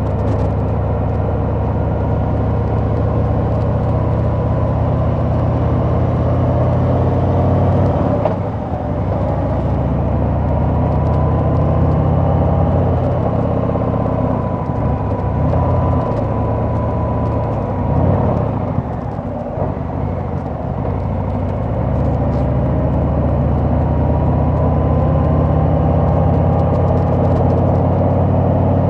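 Harley-Davidson Sport Glide's Milwaukee-Eight V-twin running under way. The engine note drops briefly about eight seconds in, and again for a few seconds past the middle as the throttle is eased. Then it pulls back up to a steady run.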